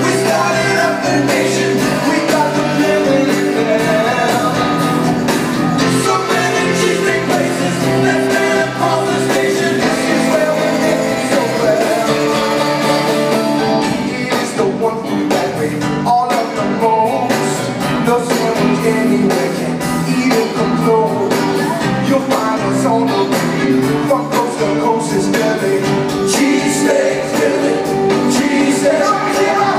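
A live rock band playing a song with singing, guitars prominent, heard from the audience seats of a theatre.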